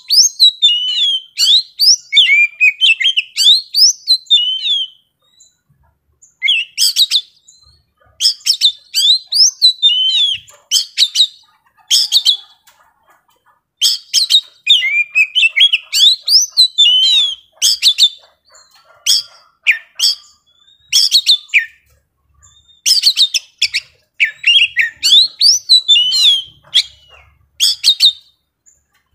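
A young wild-caught Oriental magpie-robin singing loudly and without let-up: fast, varied phrases of sweeping whistles, sharp notes and trills in long bouts, broken only by brief pauses.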